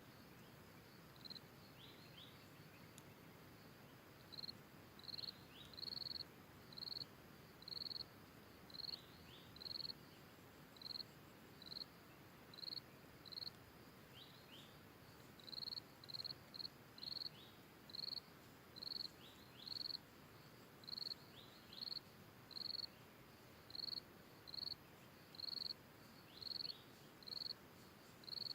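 Outdoor natural ambience of an insect chirping in short high pulses, one to two a second, in long runs, with occasional brief falling chirps over a faint steady hiss.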